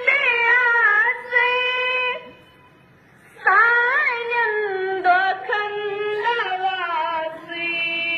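A single high voice singing a slow melody, mostly held notes. It breaks off for about a second a couple of seconds in, then returns with a wavering, ornamented phrase.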